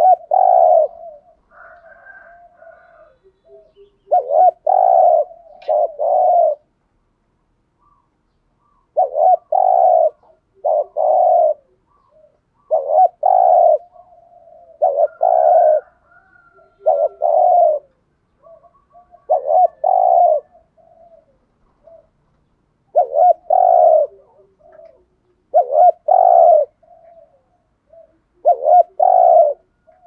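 Spotted dove cooing over and over: about ten loud phrases of a few short, throaty coos come every two to four seconds. Softer, lower coos fill the gaps between them.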